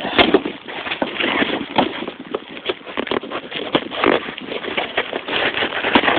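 A package being worked open by hand: irregular rustling and crinkling of packaging with scattered taps and knocks.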